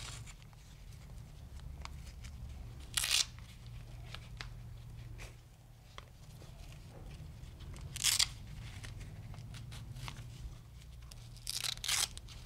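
Hook-and-loop straps on a Breg LPR knee brace being peeled open by hand. There are short tearing rips about three seconds in and about eight seconds in, then two in quick succession near the end.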